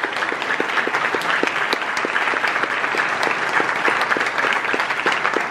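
Crowd applauding at a steady level, with one nearby pair of hands clapping evenly at about five claps a second over the general clapping.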